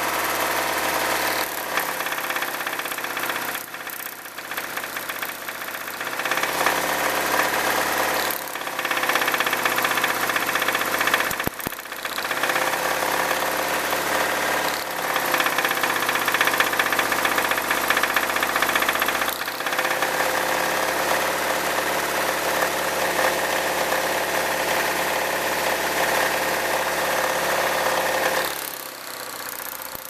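Ford 1.9-litre four-cylinder engine idling with a knock from the bottom end, its note dipping and changing several times as spark plug wires are pulled one cylinder at a time. The knock changes most with number one cylinder cut out, which points to a rod bearing or piston problem: rod knock.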